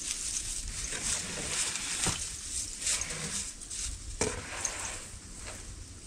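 Wooden boards knocking together as they are moved and stacked by hand, with sharper knocks about two and four seconds in, over a steady outdoor rustle.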